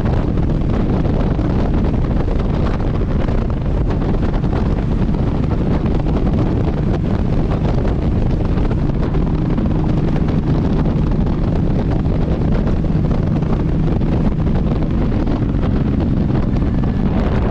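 Cruiser motorcycle at highway speed: steady wind rush on the microphone over the engine's even drone.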